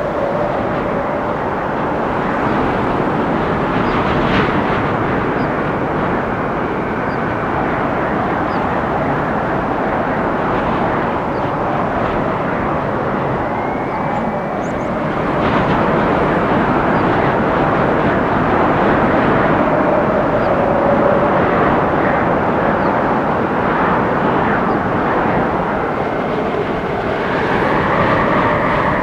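Strong gusting wind storming through forest trees: a loud, steady rush with slight swells and a faint whistling tone now and then.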